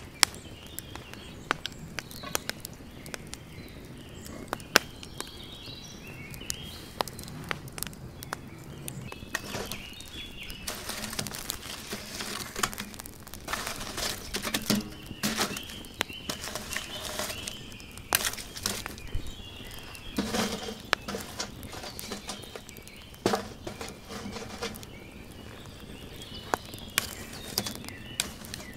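Open wood fire of burning birch logs crackling, with many sharp pops and snaps, thickening in the middle as the flames take hold. Birds chirp faintly in the background.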